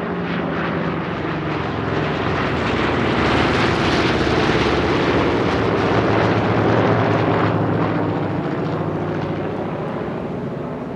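Radio-controlled model airplane's motor and propeller running steadily, growing louder toward the middle and easing off near the end.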